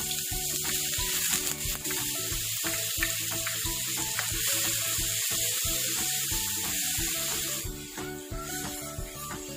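Chopped onions sizzling in hot oil in an electric wok as they are tipped in and stirred with a silicone spatula; the sizzle dies down near the end. Background music with a steady beat plays underneath.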